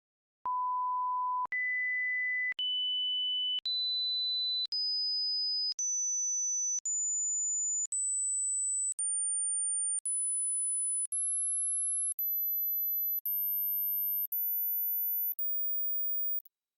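Hearing-test sine tones: fifteen steady pure beeps of about a second each, every one a step higher than the last, climbing from a medium whistle pitch to a very high, thin pitch at the edge of hearing.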